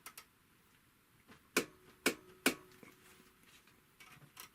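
Three sharp mechanical clicks about half a second apart, with a few fainter ones, as the mechanism of a Typical GC 2605 industrial walking-foot sewing machine is worked by hand. A faint thin tone sounds between the clicks.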